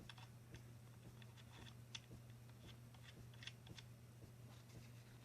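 Faint, scattered small clicks and ticks of small screws and a tool being handled while screws are set into the bipod adapter, over a low steady hum.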